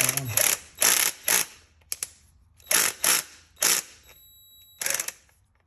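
A hand ratchet fitted with a T25 Torx bit, clicking in several short bursts as it is worked back and forth on tight Torx bolts on the engine.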